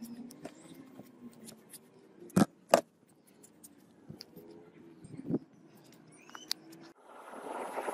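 Casting sand being packed by gloved hands and a stick in a plastic bucket: soft rustling and scraping of sand with small clicks, two sharp knocks about two and a half seconds in and a smaller one past five seconds. A steady rushing noise sets in near the end.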